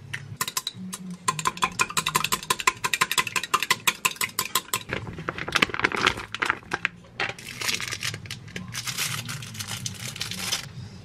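Chopsticks beating an egg in a glass measuring cup: rapid clicking against the glass, several strokes a second, for about five seconds. This is followed by the crinkling of a thin plastic wrapper being peeled off imitation crab sticks.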